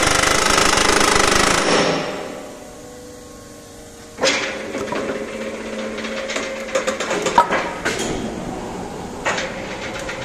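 Excavator-mounted rock drill's Doofor 560L hydraulic drifter hammering rapidly and steadily, dying away about two seconds in. About four seconds in, quieter machine running starts, with a faint hum and scattered sharp knocks and clicks.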